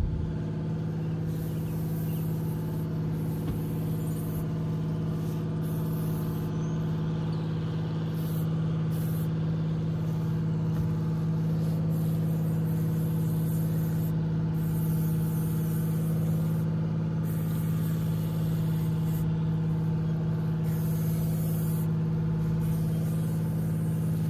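A vehicle engine running steadily at one unchanging pitch.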